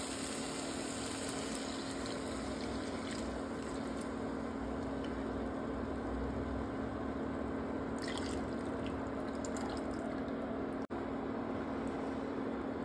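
Black chickpea broth being poured into a pan of fried spice paste, a steady liquid pour and splash, over the constant hum of an induction cooktop.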